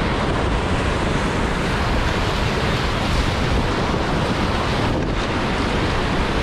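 Steady, loud rush of wind buffeting the microphone, heaviest in the low end, with no break or change.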